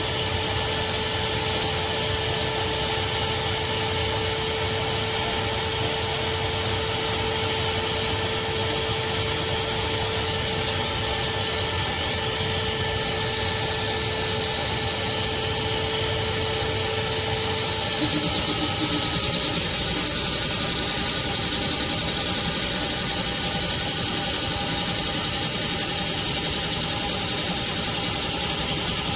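Craftsman 16-gallon, 6.5 peak HP wet/dry shop vacuum running continuously, a steady rushing motor noise with a whine. About two-thirds of the way through, the tone of the motor shifts and one steady note drops out.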